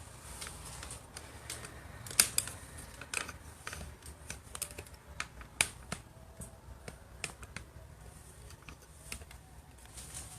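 Handheld chiropractic adjusting instrument firing, a series of sharp single clicks at uneven intervals of about one or two a second, a few of them much louder than the rest.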